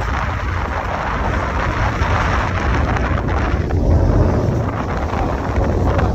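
Wind buffeting the microphone over the steady rumble of a boat under way, with water churning and splashing at the stern.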